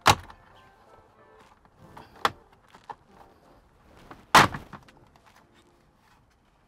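Plastic retaining clips of a Tesla Model Y dashboard trim panel snapping loose as the panel is pulled off by hand. There are three sharp pops about two seconds apart, the last the loudest, with a few lighter clicks between them, over faint background music.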